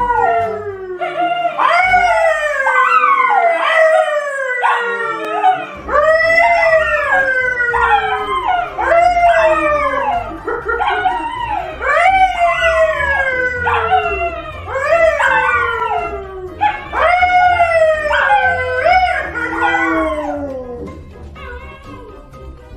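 A brown poodle and a man howling together: a long run of drawn-out howls, about one a second, each rising briefly and then sliding down in pitch, often overlapping. The howling dies away about two seconds before the end.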